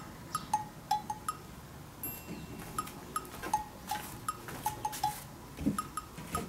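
Light background music: a bouncy tune of short plinking wood-block- and cowbell-like notes, over faint room noise.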